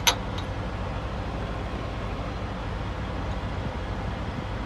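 Steady low drone of idling truck engines, with one sharp click just after the start while the new shock absorber's upper mount is worked by hand.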